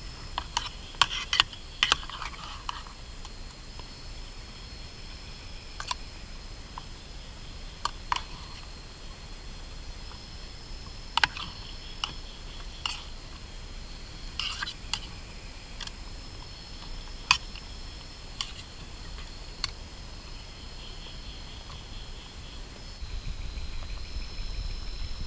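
A metal spoon clinking and scraping against a small metal camping pot in sharp, irregular clicks, about a dozen in all, over a steady high-pitched background drone.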